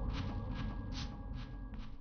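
Soundtrack music fading out: a dense low drone under a held steady tone, with short hissing strokes repeating about two or three times a second.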